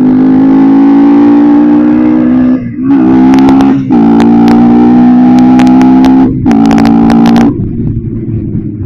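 Bajaj Pulsar NS160 single-cylinder engine, fitted with an aftermarket air filter, pulling hard at high revs while riding. It breaks off briefly three times, about 2.5, 4 and 6.5 seconds in, and the revs climb again after each break, as with gear changes. It drops away about 7.5 seconds in.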